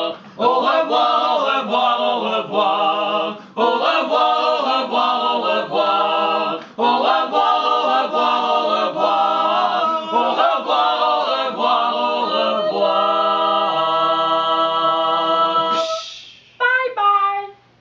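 Small mixed group of five voices singing a cappella in harmony, phrase by phrase with short breaths between. It ends on a long held chord that cuts off sharply, followed by a brief vocal sound.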